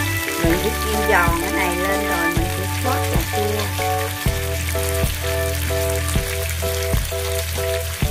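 Mackerel slices sizzling as they fry in hot oil, under background music with a steady beat.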